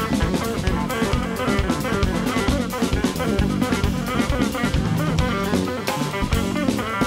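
Jazz trio playing: a hollow-body electric guitar plays quick melodic lines over a busy drum kit with cymbals and electric bass.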